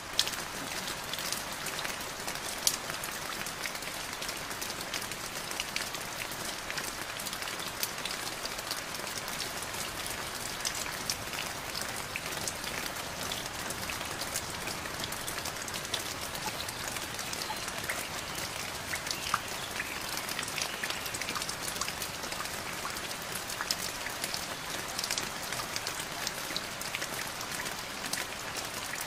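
Steady rain falling, with many separate drops striking close by as sharp little ticks over an even hiss, a few of them louder.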